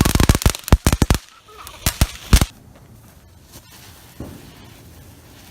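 Consumer fireworks going off in a rapid string of sharp cracks that stops after about a second. Three last cracks follow about two seconds in, then it is quiet apart from one faint thump.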